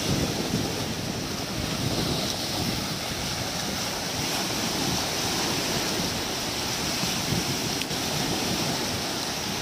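Sea surf breaking and washing around the waders in the shallows, a steady rushing noise, with wind buffeting the microphone.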